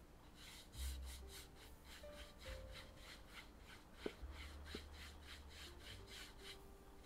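A wet flat paintbrush stroking back and forth across 300 g watercolour paper, blending a gouache wash. It makes faint, quick, scratchy rubbing strokes, about four a second, with a couple of small clicks a little after four seconds in.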